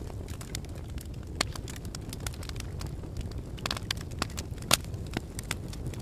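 Fire crackling: a steady low rumble of flames with frequent irregular sharp pops, the sharpest one coming late.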